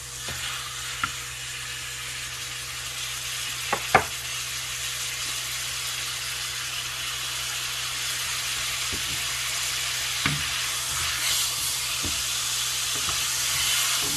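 Seitan roast sizzling on high heat in olive oil and a maple-mustard glaze in a non-stick frying pan, the sizzle growing steadily louder. A few sharp clicks of silicone-tipped tongs against the pan as the roast is turned, the loudest about four seconds in.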